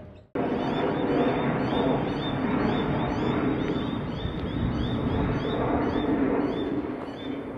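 Double-deck electric passenger train running across a rail bridge: a steady, dense rumble of wheels on track that starts suddenly just after a brief silence.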